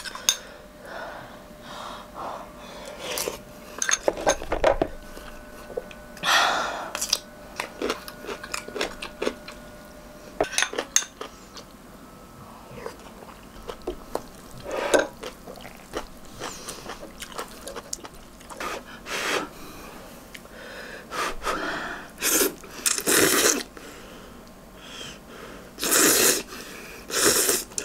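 Close-up eating of hot instant ramyeon noodles and egg: small clicks of spoon and chopsticks against a stainless pan and bowl, chewing, and a few loud noodle slurps, the biggest near the end.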